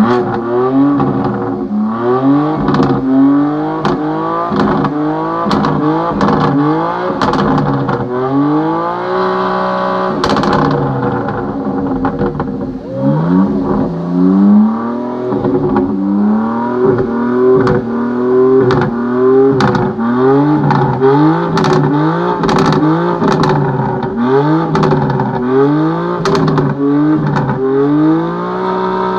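BMW M car's inline-six engine revved in quick repeated blips through its exhaust, the pitch rising and dropping back more than once a second, with one rev held for a couple of seconds about a third of the way in. Sharp exhaust cracks and pops sound over the revving.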